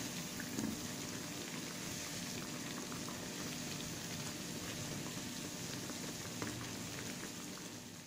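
Raw banana bajji (batter-coated plantain fritters) deep-frying in hot oil in a steel kadai: a steady sizzle of bubbling oil.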